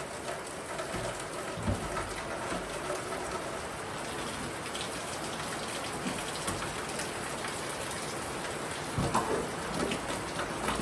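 Steady rain falling, an even hiss with a few faint knocks.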